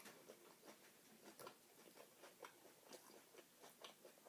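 Faint chewing of a mouthful of salad with chicken: soft, irregular crunches and mouth clicks.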